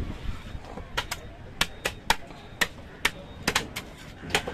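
Knife blade scraping and striking the scales of a large catla carp on a wooden chopping block: an irregular run of about a dozen sharp clicks.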